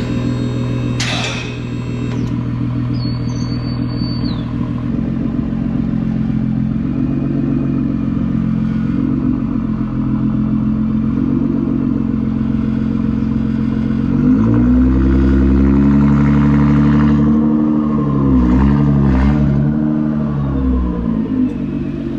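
Nissan GT-R R35's twin-turbo V6 idling, then revved several times in the last third, its pitch rising and falling with each blip. A sharp clatter sounds about a second in.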